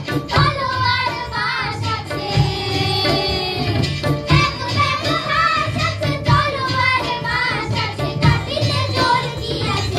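Children's choir singing a melody together into microphones, over a steady low beat.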